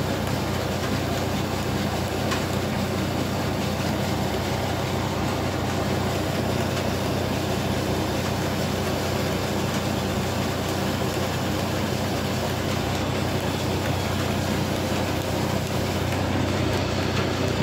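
Electric flour mill running steadily while grinding, a constant hum under a dense rushing noise.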